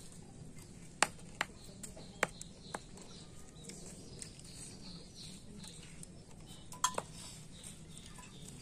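Sharp taps and clicks of fingers and mushroom pieces against a steel bowl as mushrooms are torn into it: several in the first three seconds, the loudest about a second in, and two more close together near seven seconds, over a low steady hum.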